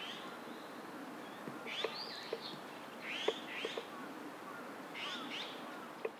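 Japanese pygmy woodpecker pecking out its nest cavity inside a tree trunk: irregular, dull taps of the bill chiselling wood. Groups of short bird chirps sound over the tapping every second or two.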